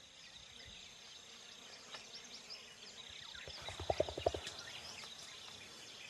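Forest ambience: a steady high insect hum with scattered short bird chirps. A little under four seconds in comes a quick run of about seven low pulses, the loudest sound here.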